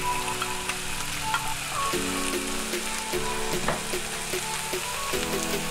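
Fried eggs, sliced mushrooms and salmon sizzling in a frying pan: a steady spitting hiss, with background music of held notes over it.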